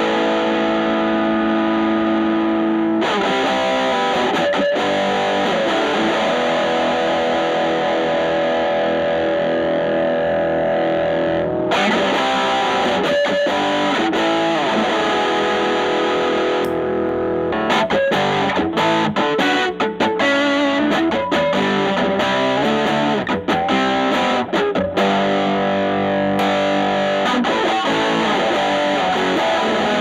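Overdriven electric guitar: a Telecaster with single-coil Alnico pickups through a Fender Studio Reverb combo's 8-inch Celestion speaker. Long sustained chords and notes for the first ten seconds or so, then busier picked phrases in the second half. The Ibanez Tube Screamer Mini in front of the amp is switched by hand partway through.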